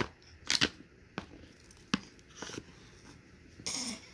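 Thick cardboard jigsaw puzzle pieces being handled and fitted together on a bed: a series of light taps and clicks, then a short scraping rustle near the end.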